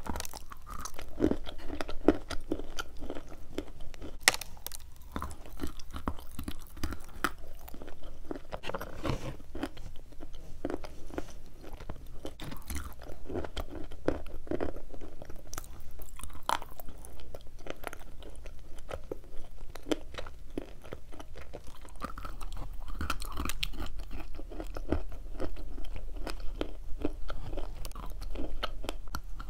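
Close-miked crunching and chewing of chalk and clay lumps, an irregular run of crisp bites and crunches.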